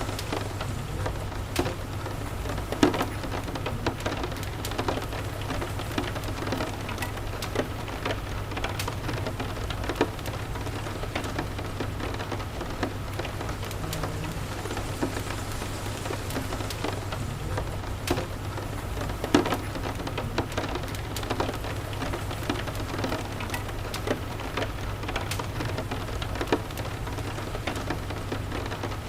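Steady rain falling, mixed with a crackling wood fire: scattered sharp pops and clicks throughout, two louder ones about three seconds in and again near twenty seconds, over a low steady hum.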